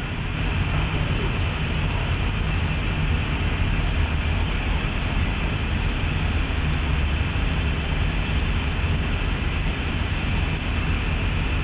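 Steady running noise of shop machinery: a low hum under an even hiss, with no knocks or changes.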